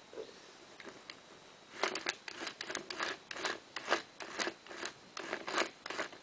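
Plastic toy mechanism in a Polly Pocket octopus toy's pink base being worked by hand, giving a run of short rasping clicks, about three a second, that starts about two seconds in.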